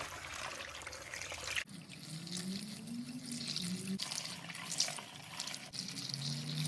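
Engine coolant being poured from a container into a car's coolant reservoir: a steady pouring and trickling of liquid with a faint tone that slowly rises in pitch.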